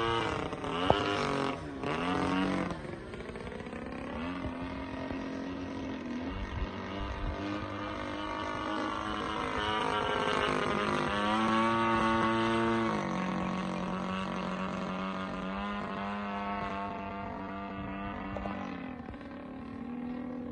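The 55cc two-stroke gas engine of a giant-scale RC Edge 540 aerobatic plane, running in flight. Its pitch rises and falls again and again, highest and loudest around the middle. A single sharp click comes about a second in.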